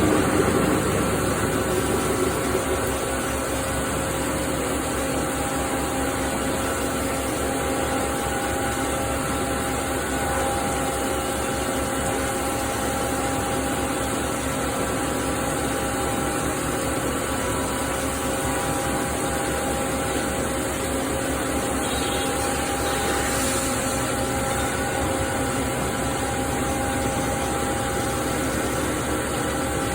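CNC machining centre milling SS400 steel with a carbide tool: a steady spindle and cutting whine with several held tones over a mechanical hum, a little louder for the first couple of seconds, then even.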